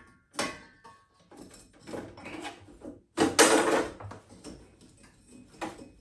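Baffle-removal tool and flue baffle knocking and scraping inside a Worcester Bosch boiler's heat exchanger as the baffle is worked loose and pulled up. A series of short clunks and scrapes, the loudest a scrape of about half a second a little past the middle.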